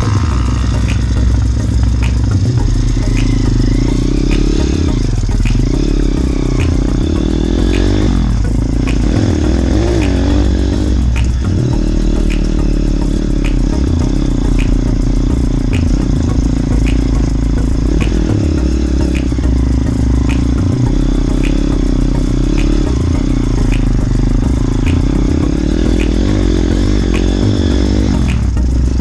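Small motorbike engine running steadily while riding, with the engine pitch rising and falling a few times near the middle.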